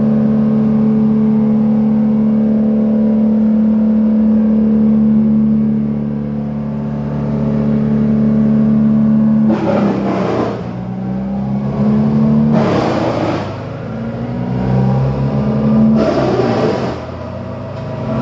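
Two-stroke chainsaw running at high speed, a steady high engine note. About halfway through, its pitch drops and wavers as it takes load. Three short bursts of rasping noise come at the same time, as the saw bites into the wood.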